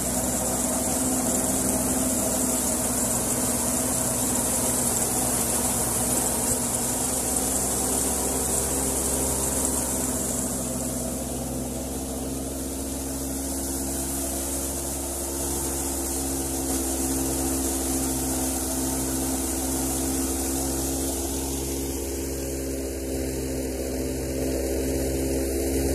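Tractor-driven wheat thresher running steadily: a constant machine drone with a strong high hiss over it.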